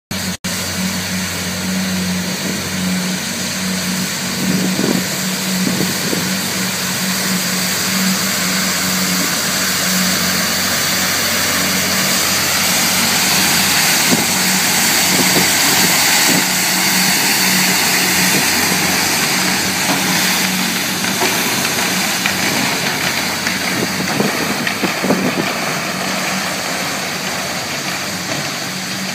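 Isuzu-chassis street sweeper running with its side gutter broom turning: a steady engine hum with a broad hiss over it.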